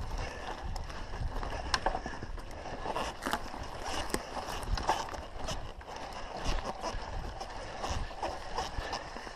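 Mountain bike rattling and clattering as it rolls fast over a rough dirt forest trail, with many irregular sharp knocks from the bike over bumps and roots and a steady low rumble of wind on the microphone.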